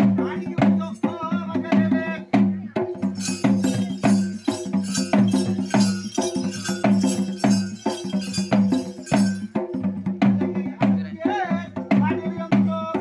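Bhoota kola ritual music: drums beat a quick, steady rhythm over a constant low drone, with a pitched melody line bending near the start and again near the end. A bright, high jingling joins from about three seconds in and fades out near nine seconds in.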